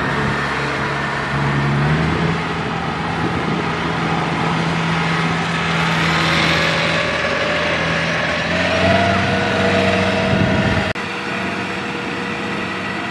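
Farm tractor engine running steadily under load as it pulls a trailer loaded with rice sacks across a harvested paddy field. The sound drops suddenly in level about eleven seconds in.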